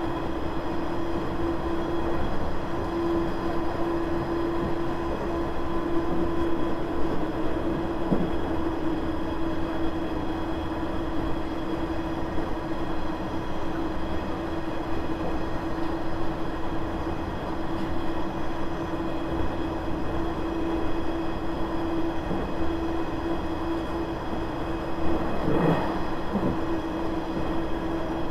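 KiHa 100 series diesel railcar running along the line, heard from aboard: a steady drone of engine, gearing and wheels on rail, with a constant humming tone. There is a single brief knock about 25 seconds in.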